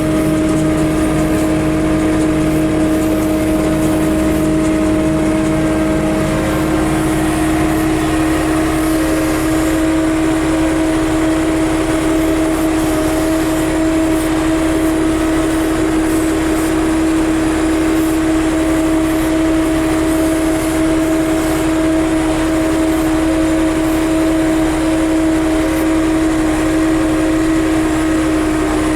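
John Deere 6300 tractor running steadily with a constant hum, driving a John Deere 328 small square baler.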